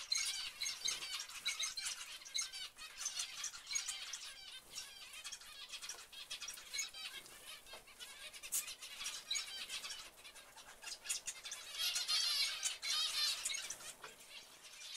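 A flock of zebra finches calling: many short, high chirps overlapping one another, busiest at the start and again about twelve seconds in.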